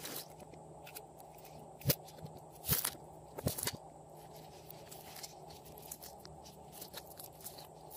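Hands squishing, pressing and pulling glossy slime in a silicone mold, giving wet sticky clicks and pops. The loudest few come in the first half, over a steady low hiss.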